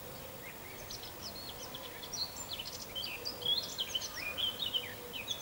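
Dry-erase marker squeaking on a whiteboard as words are written: a quick run of short, high, chirping squeaks over a faint steady hum.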